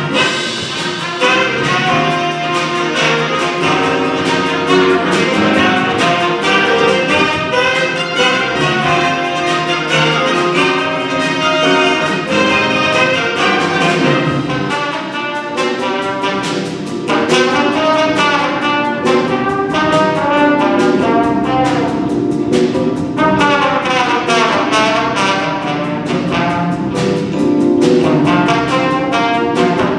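Jazz band with trumpets and trombones playing loud, brass-led ensemble passages.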